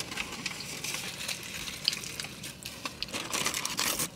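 Irregular rustling and light clicks of takeout food and its packaging being handled at a meal, busiest near the end.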